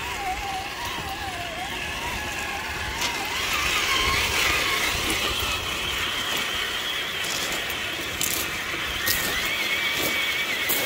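Electric whine of the Traxxas TRX-4 RC crawler's brushed 550 motor and geared drivetrain, its pitch wavering and climbing as the throttle is worked, with a few sharp clicks.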